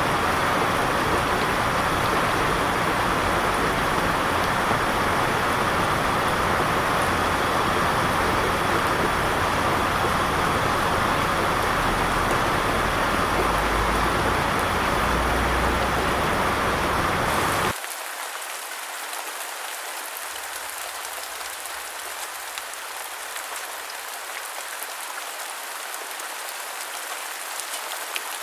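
Steady, loud rain with a deep rumble underneath. About two-thirds of the way through it cuts abruptly to lighter, thinner rain pattering without the rumble.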